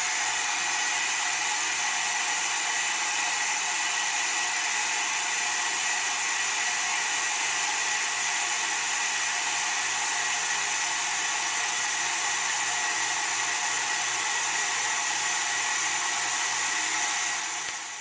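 Toilet cistern refilling after a flush: water hisses steadily through a newly fitted fill valve, with a thin whistling note in the hiss. Near the end it dies away as the valve shuts off at the full level, a sign that the toilet no longer keeps running.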